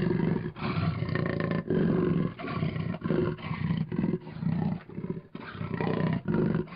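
A big cat roaring in a run of calls of uneven length, each from a fraction of a second to about a second long, with short gaps between them.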